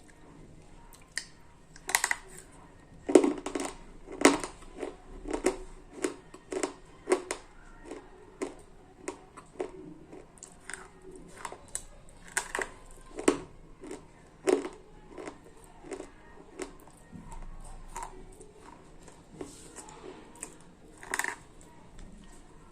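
Slate pencils being bitten and chewed close to the microphone: a long run of sharp, dry crunches, about one a second, with no talking.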